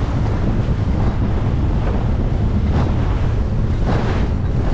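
Heavy wind buffeting the microphone over the rush of water as a boat runs through choppy sea, with a few splashes of spray off the bow.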